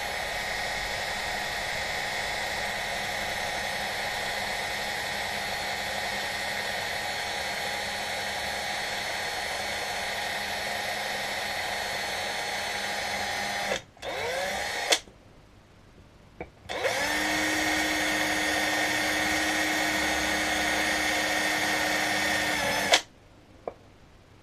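Power drill with a small centre drill starting a pilot hole in a centre-pop mark on a telescope's secondary mirror holder. It gives a steady motor whine for about fourteen seconds, then a brief burst, then a second steady run of about six seconds that cuts off sharply near the end.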